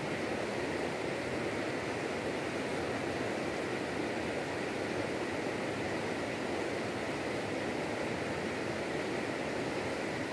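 Steady rush of flowing stream water, even and unbroken.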